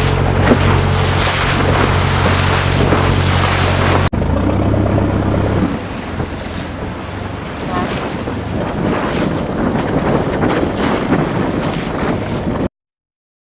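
Wind buffeting the microphone over the rush and splash of waves as a small sailboat cuts through choppy sea. A boat engine hums steadily underneath for the first four seconds. It drops away at a cut, leaving wind and water until the sound stops abruptly near the end.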